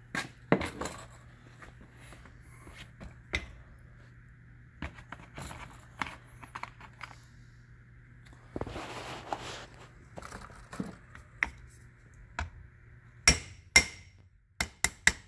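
Light metal-on-metal hammer taps and clinks as wrist pin end caps are driven into the pin bore of a Detroit Diesel 6-71 piston. The caps seal in the oil pressure for the wrist pin. A few scattered taps come first, then a stretch of rubbing and handling about halfway through, then a quick run of sharper taps near the end.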